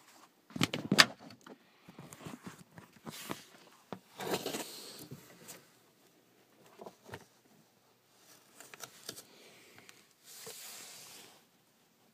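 Handling noises: a cluster of sharp knocks and clicks about a second in, then irregular rustling and scraping, and a short stretch of hiss about ten seconds in.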